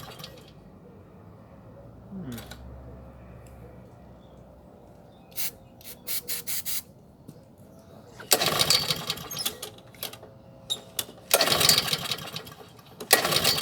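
Small push-mower petrol engine being pull-started by its recoil cord. It turns over with a fast rattling for about a second and a half twice, then briefly a third time near the end, without settling into running.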